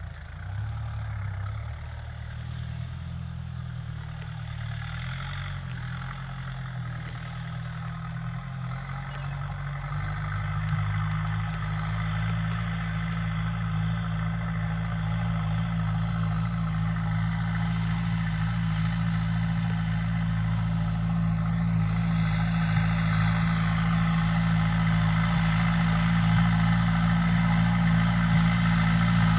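Farm tractor's diesel engine running steadily as it pulls a mounted seed drill, growing louder from about a third of the way in as it draws nearer.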